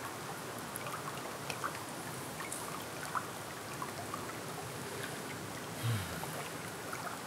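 Steady outdoor water noise, a continuous rush with many scattered drip-like ticks, as of rain or running water. A brief low hum from a voice, falling in pitch, about six seconds in.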